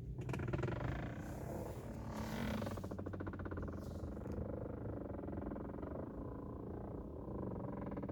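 2019 Mercedes-Benz A-Class engine running with a steady low rumble, with a rapid buzzing rattle from about three seconds in to about four and a half. This is the noise the car makes on switching off and on, which the brand says is normal for the model.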